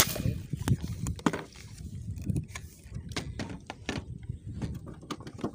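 A sharp click at the very start, then scattered light knocks and clatter of handling and movement on a bamboo platform, over a low rumble of wind on the microphone.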